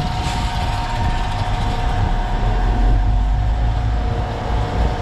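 Heavily loaded concrete mixer truck's diesel engine pulling hard in low range and six-wheel drive to climb a steep grade, a steady deep rumble with a thin steady whine over it.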